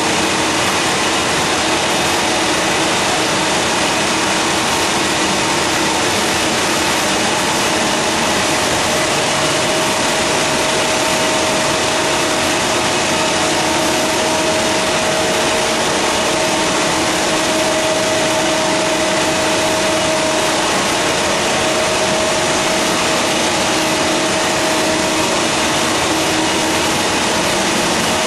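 Fourdrinier paper machine running steadily: a loud, even machinery noise with a steady tone that becomes more prominent through the middle of the stretch.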